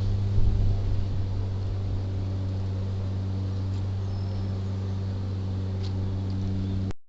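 Steady low mechanical hum from a running engine or motor, with a few faint high chirps over it; it cuts off abruptly near the end.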